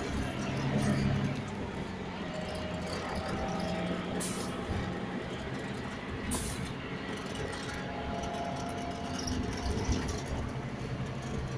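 Steady interior drone of an Irizar i8 4x2 coach on the road, engine and road noise, with two short hisses about four and six seconds in.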